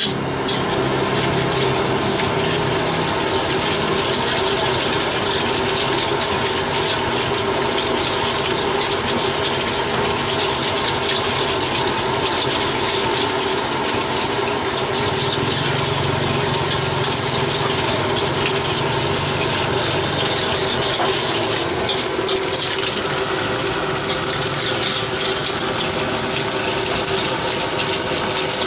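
Egg frying in a steel wok over an LPG gas burner: steady loud roar of the flame with sizzling, and a metal spatula scraping and clinking against the wok, more often in the last few seconds.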